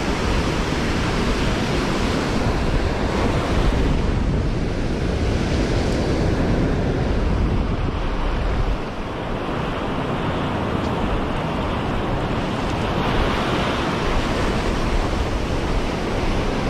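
Ocean surf breaking and washing up the sand at the water's edge, a steady rush with gusts of wind buffeting the microphone.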